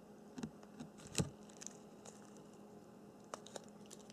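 Mouth sounds of someone eating a hard grape candy: a few small, sharp clicks of the candy against the teeth, the loudest about a second in and a couple more near the end, over a faint room hum.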